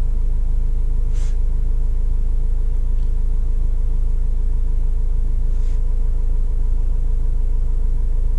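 Vauxhall Vivaro 2.5 CDTI four-cylinder turbodiesel idling steadily, heard from inside the cab. It runs smoothly now that the carbon-stuck EGR valve has been replaced.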